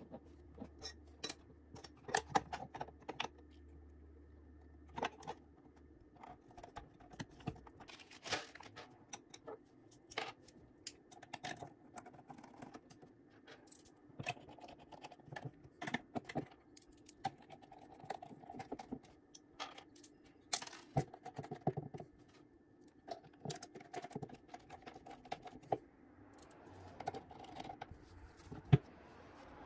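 Irregular clicks, taps and light rattles of hands assembling a small combat-robot chassis: tucking wires into the plastic body and fitting its aluminum top plate and screws. A faint steady hum runs underneath, and there is one sharp knock near the end.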